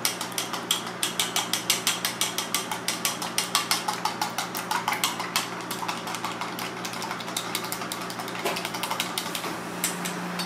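Long wooden cooking chopsticks beating raw eggs in a small stainless steel bowl: quick, rhythmic clicks of wood against metal, about four or five a second, growing softer after about six seconds.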